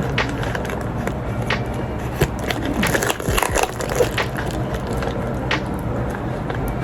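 Heavily taped package being opened by hand: irregular crinkling, tearing and sharp clicks of packing tape and plastic wrapping, over a steady low background rumble.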